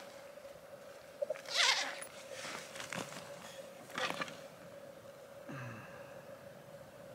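Handling noise from a spotting scope on a tripod being adjusted: a few soft rustles and clicks, and a brief low falling sound near the end, over a faint steady hum.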